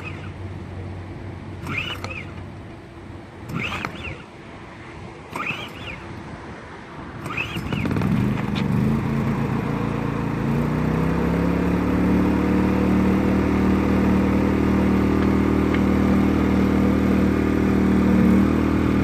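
Harbor Freight portable gasoline generator being pull-started: the starter cord is pulled about five times, roughly every two seconds. About eight seconds in the engine catches, its pitch rises and settles, and it then runs steadily.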